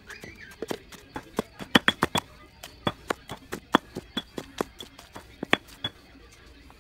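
Stone pestle pounding minced fish and green herb paste in a stone mortar: a run of sharp, irregular knocks, a few a second, stopping about six seconds in.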